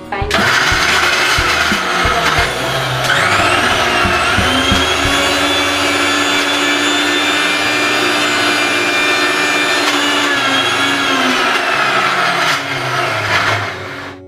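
Electric mixer grinder running loud with a steel jar, grinding to a paste. The motor starts abruptly, its whine climbs in pitch about three seconds in as it speeds up, holds steady, then stops near the end.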